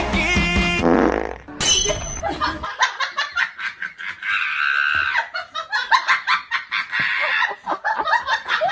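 Music cuts off about a second in, followed by a falling swoop, a short high beep, and then an edited comic sound effect: a fast run of short pulsing sounds, about six a second, that goes on to the end.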